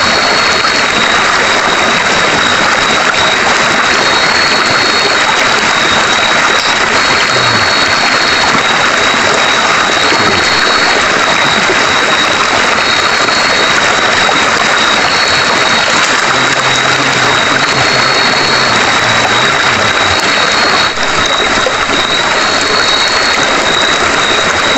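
Steady rush of a river flowing over rocks, with a thin high whine over it and a slightly higher note breaking in about every two seconds.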